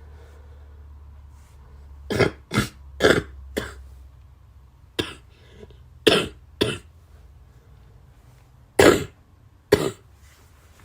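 A person coughing in three fits: four coughs about two seconds in, three more around the middle, and two near the end.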